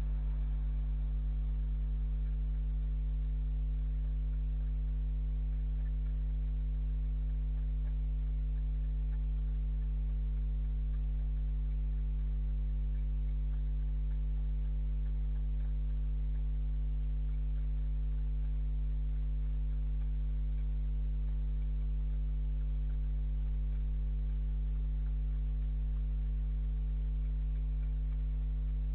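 Steady low electrical hum with a buzz of evenly spaced overtones over faint hiss, unchanging throughout.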